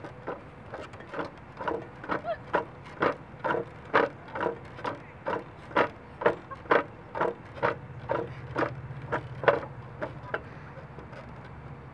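Playground spring rider creaking in a regular rhythm, about two creaks a second, as a toddler rocks it back and forth on its spring; the creaking stops near the end.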